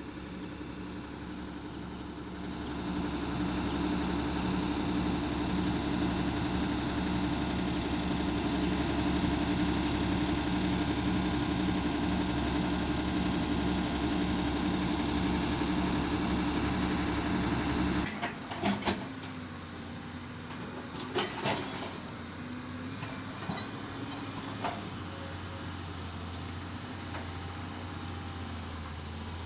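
An engine running steadily, louder from about three seconds in, then dropping away abruptly about 18 seconds in. After it drops come a few short knocks and a quieter, lower steady hum.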